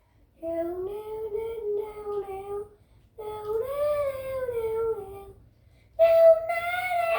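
A child singing wordlessly in three drawn-out phrases with short breaks between them. The last phrase is louder and higher.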